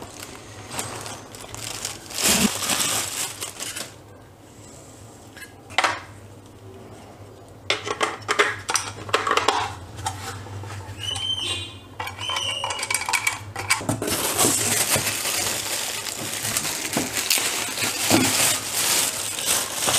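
Clear plastic wrapping crinkling and rustling as a monitor's stand base and bagged cables are unwrapped and handled, with scattered knocks and clicks of the hard plastic parts. The rustling turns dense and continuous near the end as the plastic bag of cables is handled.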